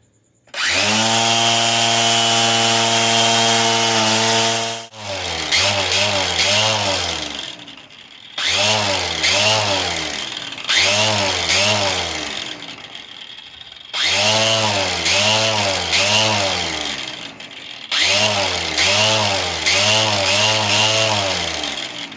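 Grinder with a 3,000-grit diamond polishing pad polishing an agate: the motor starts, runs at a steady pitch for about four seconds, then works in several short bursts, its speed rising and falling about three times in each.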